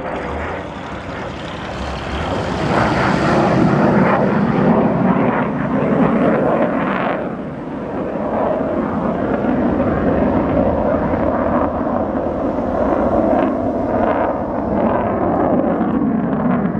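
Jet aircraft's engine noise from a low air-show pass overhead: a loud, continuous rush that builds about two seconds in, eases briefly a little past halfway, then holds steady.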